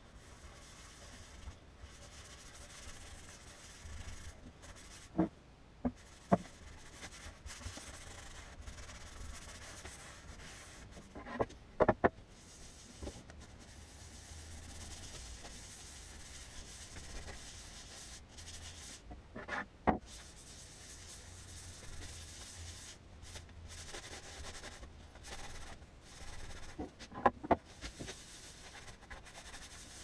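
A cloth rubbing back and forth over a veneered wooden board, wiping on wood dye or finish, with a few short knocks scattered through.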